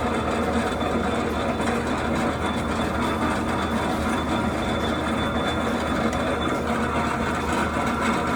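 40 mm geared pillar drill running under load while boring a 38 mm hole in metal: a steady machine hum and gear noise with a thin high whine.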